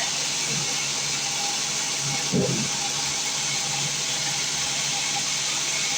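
Sawmill machinery running steadily: a constant hum under a strong hiss, with one short louder sound about two and a half seconds in.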